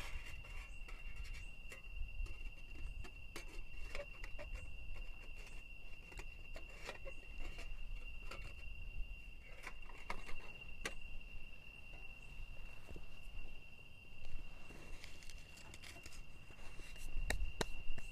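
Night insects droning on one steady high note, with scattered clicks, taps and rustles of camp gear being handled close by.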